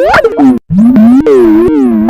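Skype ringtone played loud and pitch-warped, its synth notes swooping down and back up in repeating glides, with a brief cut-out just after half a second.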